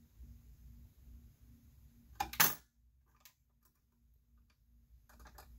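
CPU socket retention clip on a Mac Pro processor tray being worked loose by hand: small light clicks of metal and plastic, with one loud sharp click a little over two seconds in as the clip lets go.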